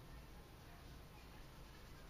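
Near silence: room tone with a low hum and faint hiss.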